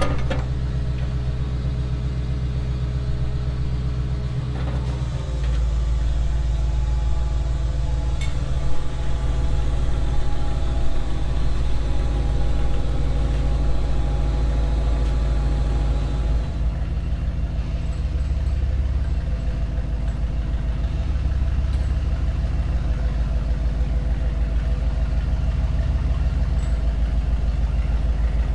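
A tow truck's engine idling steadily. Its note shifts and grows heavier about five seconds in, then settles back at about sixteen seconds.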